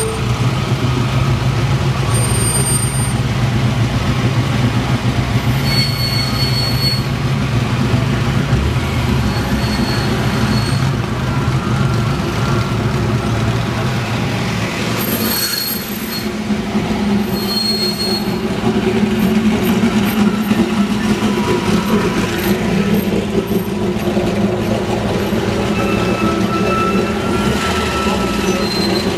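Engines of classic Alfa Romeo sports cars running as they roll slowly past one after another, with brief high-pitched squeals now and then.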